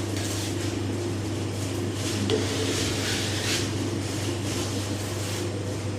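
Steady low electrical or machine hum, with scattered rustling, scraping and light knocks from large panels being carried and handled.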